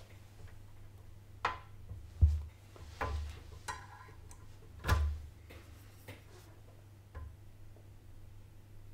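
Scattered small knocks and clicks of tools and parts being handled on an electronics workbench during capacitor removal, about six in all, the loudest a little over two seconds in; one near the middle is followed by a brief metallic ring. A steady low hum lies underneath.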